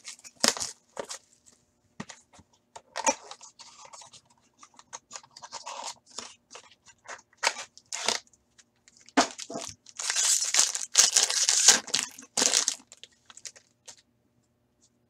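A hockey card pack wrapper being torn open and crinkled by hand. Short, irregular bursts of tearing and rustling come densest and loudest for about three seconds from ten seconds in, then fall quiet near the end.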